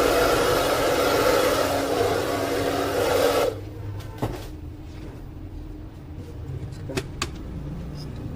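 Hair dryer, used in place of a blower, running with a steady whooshing hum for about three and a half seconds to blow dust out of the opened laser printer, then switched off, followed by a few light clicks.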